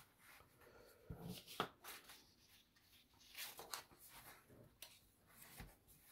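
Faint rustling and light taps as thin laser-cut plywood part sheets and a paper plan are slid and set down by hand, with a sharper tap about a second and a half in and a soft knock near the end.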